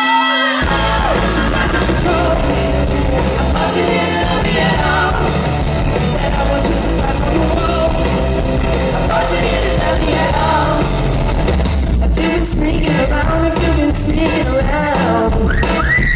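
Live rock band playing an instrumental break led by a semi-hollow electric guitar, with bass and drums. The full band comes in about half a second in as a held sung note ends, and a sung wail rises and falls near the end.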